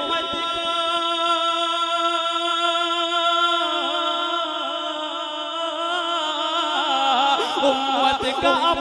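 A solo male voice singing a naat, holding one long note for about seven seconds with a wavering ornament in its second half. Near the end it breaks into a quicker run of notes.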